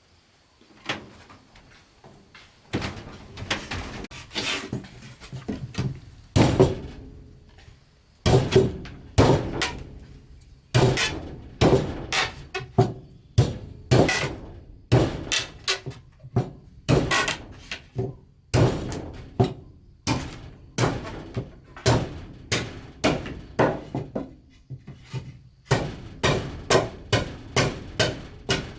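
Repeated thuds of a tool striking wood, about one to two blows a second, in runs with short pauses between them.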